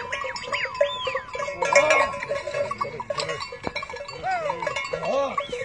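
Bells ringing on a moving herd of cattle, with short rising-and-falling animal calls over them throughout, a few lower and fuller bleating calls among the higher ones.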